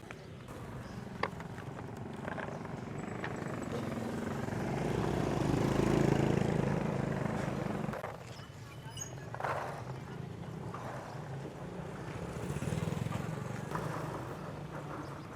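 A vehicle engine running close by, growing louder to its peak about six seconds in and then cutting off abruptly at about eight seconds, with a lower engine hum carrying on after it. A sharp click sounds about a second in.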